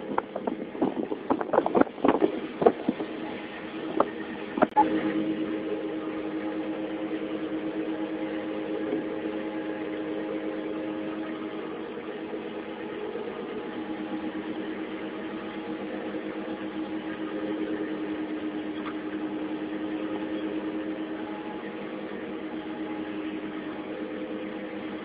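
Boat engine running steadily with a low, even hum. Several sharp knocks and clicks come in the first five seconds.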